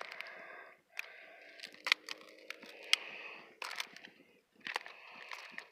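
Irregular sharp clicks and crackles over a soft rustle: the smashed phone's broken plastic and glass pieces being handled and shifted.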